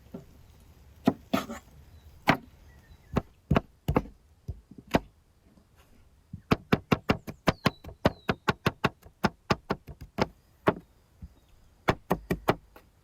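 Knife chopping vegetables on a cutting board. A few spaced sharp chops, then a quick even run of about five chops a second through the middle, then a few more near the end.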